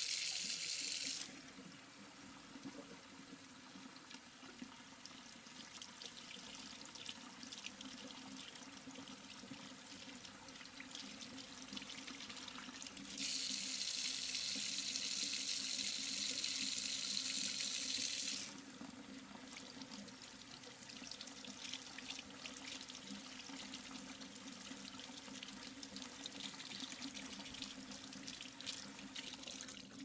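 Water running from a tap into an operating-room sink. A loud full-on rush stops about a second in, softer uneven running and splashing follows, a second loud rush lasts about five seconds around the middle, then softer splashing again, over a steady low hum.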